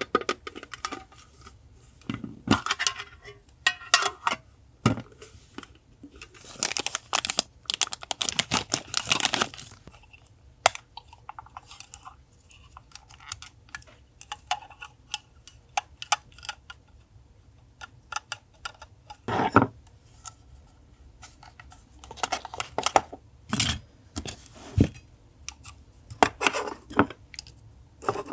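Paper being handled close up: irregular rustling, crinkling and tearing, with small sharp taps and clicks, in short bursts separated by quiet gaps.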